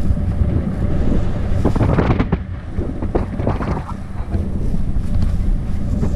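Wind rushing and buffeting over the microphone of a paraglider's harness-mounted camera in flight on the landing approach. A few brief rustling sounds come through about two to four seconds in.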